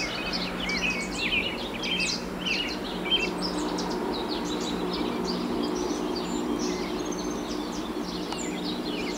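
Several birds chirping and calling, with many short quick notes, over steady outdoor background noise and a low steady hum.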